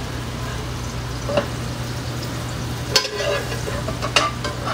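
Metal tongs clicking and scraping a few times against a stainless steel pan while pasta and asparagus are handled, over a steady hiss and low hum.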